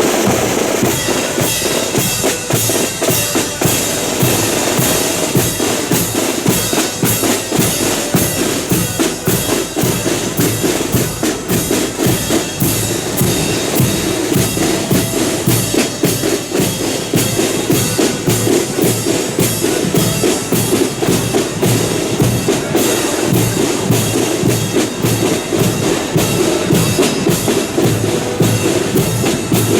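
Marching accordion band playing a tune, accordions over a steady march beat of bass drum and snare drums.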